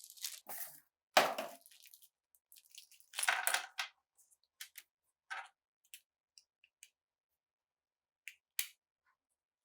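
Sharp metallic clicks and clatter of an old Browning pistol's parts being handled: a loud click about a second in, a short run of clatter around three seconds in, then scattered light ticks and two more clicks near the end.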